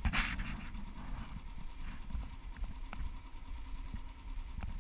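Small outboard motor running slowly with a steady low rumble, a short louder burst right at the start, and a few faint clicks.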